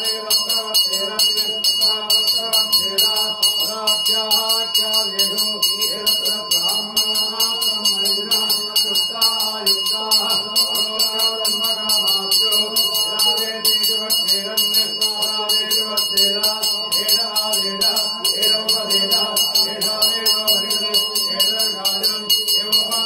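Brass puja hand bell (ghanta) rung continuously in rapid even strokes, its high ringing tones held steady throughout, under chanting.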